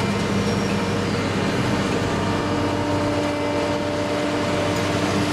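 Diesel engine and hydraulic drive of the grab crane running steadily, heard from inside the operator's cab; a higher steady hum joins in a little over two seconds in.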